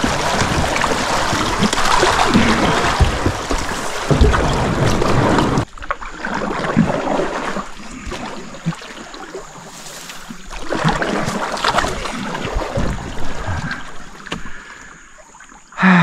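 Fast river water rushing and splashing around kayaks being waded through a shallow, snag-filled channel. The steady rush cuts off abruptly about six seconds in, and after it come quieter, irregular surges of splashing.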